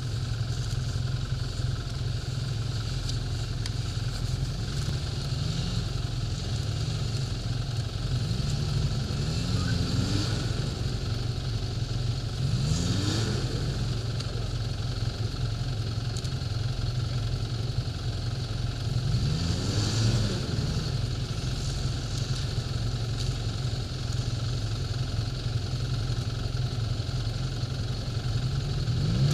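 Snowmobile engines idling with a steady low hum. The throttle is blipped a few times, each a short rise and fall in engine pitch, as the machine creeps forward behind another snowmobile.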